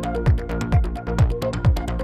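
Electronic dance background music with a steady beat: a kick drum about twice a second, hi-hat ticks between the kicks, and held synth notes.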